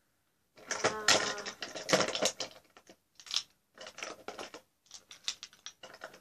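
Small hard objects clicking and clattering as a makeup box is rummaged through and nail polish bottles are picked out. There is a dense burst of clatter in the first couple of seconds, then scattered single clicks.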